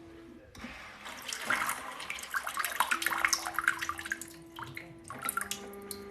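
Electric bidet seat spraying its wash jet, the water spattering and splashing in the toilet bowl, with a steady electric hum alongside. The spray starts about half a second in and eases off near the end.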